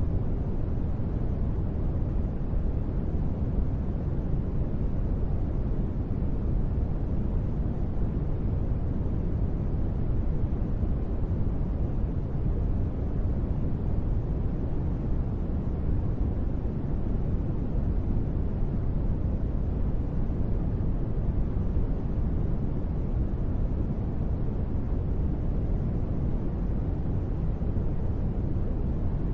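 Steady, deep rain-style white noise, an even hiss and rumble weighted toward the low end, with no separate drops, thunder or changes in level.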